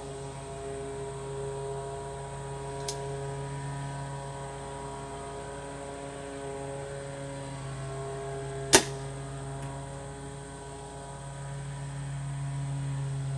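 A single sharp crack of a 150-pound Scorpyd Orion crossbow firing, about nine seconds in, over a steady low hum. A faint click comes about three seconds in.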